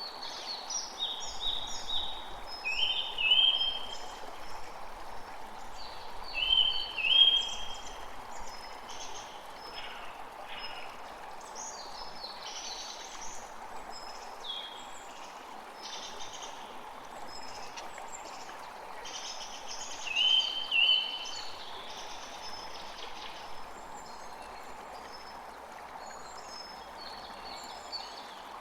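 Several birds chirping and calling over a steady rushing background of wind. A louder two-note call repeats three times: a few seconds in, about seven seconds in, and again about twenty seconds in.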